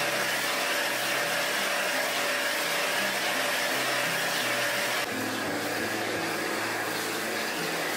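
Restaurant wok burner running with a steady roar of gas flame under a wok of frying food. The roar drops slightly about five seconds in.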